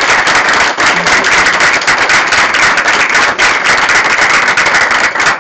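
Audience applause: many people clapping together in a loud, dense run.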